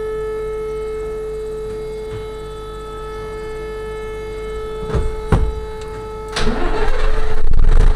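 A siren holds one steady tone throughout. About five seconds in come two sharp knocks, and about a second later a vehicle engine starts up, its pitch rising as it catches, then runs loudly, drowning out the siren.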